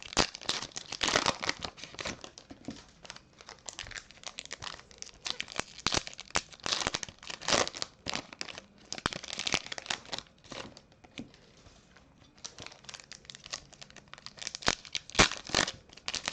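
Foil trading-card pack wrappers being torn open and crumpled, with cards being handled: a run of irregular crinkles, rips and light clicks that eases off briefly about two-thirds of the way through.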